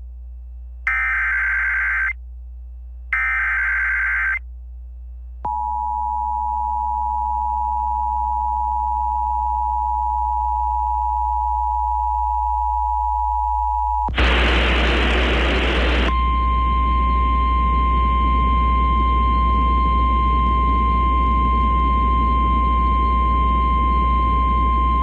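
Emergency Alert System tones: the last two of the three screeching SAME header data bursts, each about a second long. Then the EAS two-tone attention signal holds steady for about nine seconds. After a brief burst of hiss comes the single steady 1050 Hz NOAA Weather Radio warning alarm tone.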